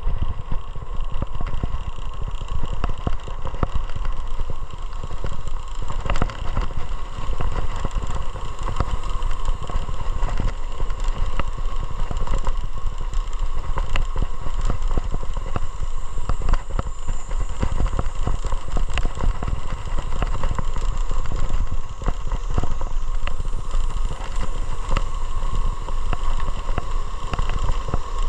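Motorcycle engine running steadily under a loud, even low rumble, with a steady hum and light rattling clicks.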